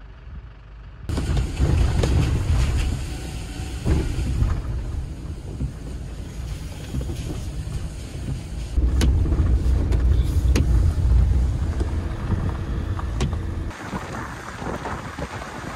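Camper van on the move: dense road and engine rumble with wind buffeting the microphone, starting abruptly about a second in, with a few sharp clicks.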